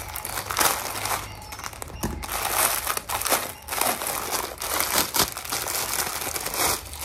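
Thin plastic packaging crinkling in irregular bursts as it is handled and unwrapped.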